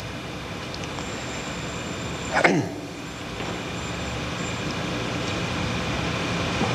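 Steady hum and hiss of the hall recording with a few faint steady tones, slowly growing a little louder, and one brief sound falling in pitch about two and a half seconds in.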